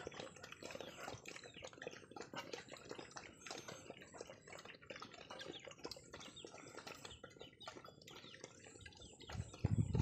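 Several puppies eating from metal pots: a busy, irregular run of small wet clicks, laps and slurps. Near the end a much louder low-pitched noise comes in.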